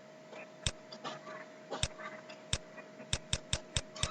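Sharp clicks, a few single ones spaced about a second apart, then a quick run of five about four a second near the end, over a faint steady hum.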